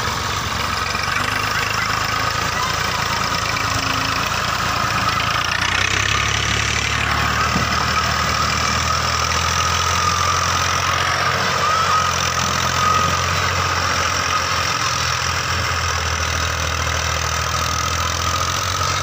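Massey Ferguson 240's three-cylinder diesel engine running steadily under load while pulling a fully loaded trolley, its low drone growing heavier about six seconds in.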